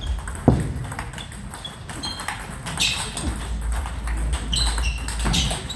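Table tennis rally: a celluloid-type ball clicking irregularly off bats and table tops, part of it a blocking exchange played with a frictionless anti-spin rubber (Dr. Neubauer ABS 3), with other tables' balls ticking in the background. A stronger dull thump comes about half a second in, and a few short high squeaks come later.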